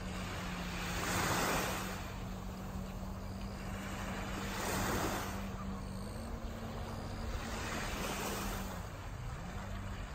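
Distant personal watercraft (jet ski) engine running with a steady drone, its pitch stepping up slightly about six seconds in and dipping briefly near the end. Three swells of rushing noise rise and fall over it.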